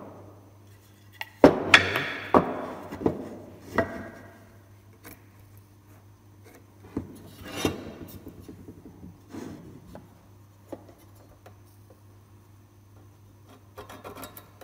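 Pine wood strips and a metal square handled on a workbench: a cluster of sharp knocks and scraping slides as the pieces are set down and moved about a second and a half in, then scattered light taps while a piece is marked.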